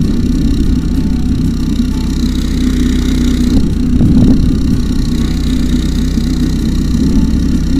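Single-cylinder 200 cc four-stroke engine (a Honda GX200 clone) of an off-road drift buggy go-kart, running steadily while the kart is driven on grass.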